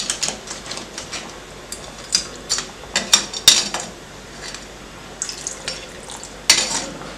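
A metal ladle stirring a watery crab curry in a stainless steel pan. It gives scattered clinks and scrapes against the pan, a run of them around the middle and a louder scrape near the end.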